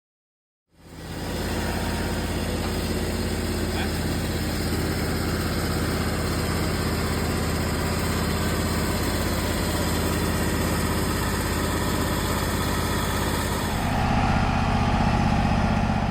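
Wood-Mizer portable sawmill's engine running steadily, starting suddenly about a second in. Near the end the high hiss drops away and the engine note shifts.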